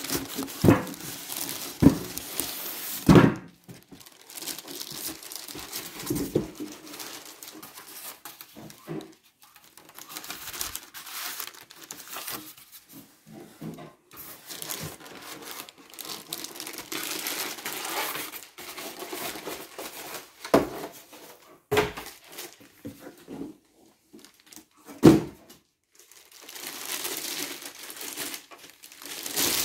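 Clear plastic wrapping bag crinkling and rustling as it is handled and pulled off a computer monitor, along with the monitor and foam packing blocks being lifted out of a cardboard box. Several sharp knocks break in, the loudest about three seconds in and about twenty-five seconds in.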